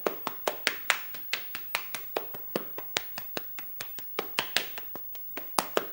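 Body percussion: hands slapping the chest and hips in a quick, uneven rhythm of about four to five sharp slaps a second.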